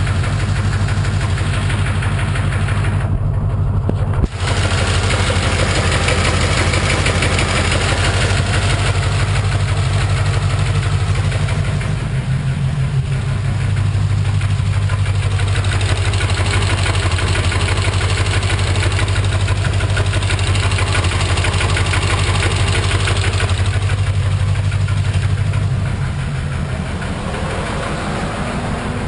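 1991 Corvette L98 5.7-litre V8 running with a knock that the owner suspects is rod knock. A sharp thump comes about four seconds in, and the level drops a little near the end.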